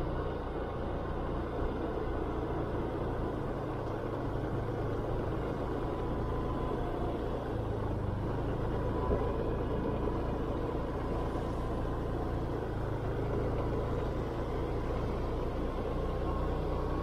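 Motorcycle running steadily along a road, heard from the rider's seat: an even engine hum mixed with wind and road noise.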